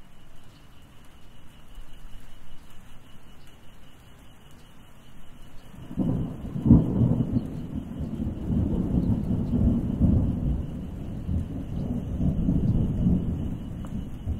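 Thunderstorm with steady rain; about six seconds in, thunder breaks with a sharp crack and rolls on as a long low rumble.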